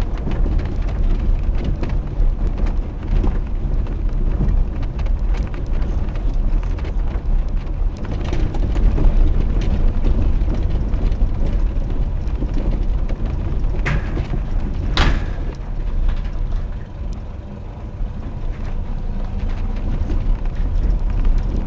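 Low rumble and rattling of a vehicle jolting along a rough, rutted dirt road, with many small knocks and two sharper knocks a little past the middle.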